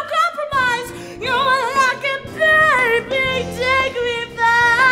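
Women's voices belting a musical-theatre duet, long held notes with wide vibrato, over band accompaniment.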